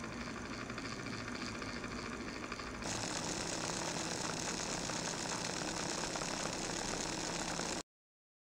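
Small electric motor of a Lima H0-scale model railcar running on test power, whirring steadily as it turns the bogie wheels. About three seconds in the whirr becomes slightly louder and brighter, and near the end it cuts off suddenly.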